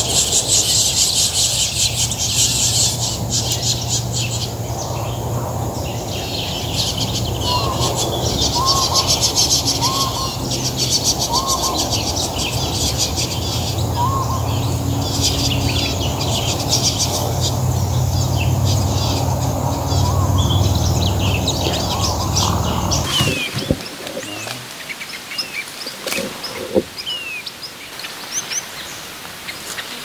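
Many small birds chirping together in a dense, busy chorus over a low steady rumble. About 23 seconds in, the chorus and rumble cut off suddenly, leaving scattered single chirps over quieter background noise.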